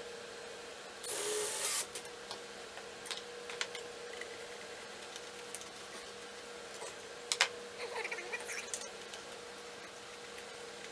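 A cordless drill runs once, briefly, about a second in, with a high whine, driving a screw through a steel hose clamp into a wooden board. After that come a few light clicks and taps and a short rattle near the end as a hand driver tightens a worm-drive hose clamp around a glass mason jar.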